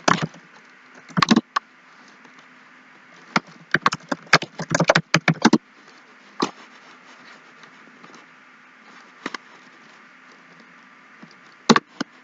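Computer keyboard typing: scattered single keystrokes, with a quick run of them a few seconds in, over a faint steady hum.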